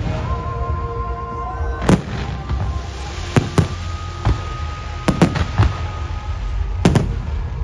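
Fireworks display: sharp bangs of bursting fireworks at irregular intervals, about eight in all, several in quick succession around the middle, over a continuous low rumble, with music playing underneath.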